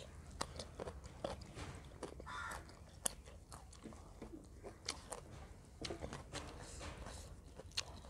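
Close-up eating sounds: wet chewing and lip smacks, with scattered sharp clicks. A bare hand squishes and mixes soft maize dhido and chicken curry against a steel plate.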